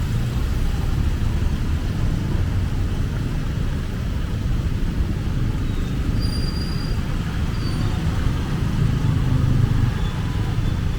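Road vehicle driving: a steady low rumble of engine and road noise.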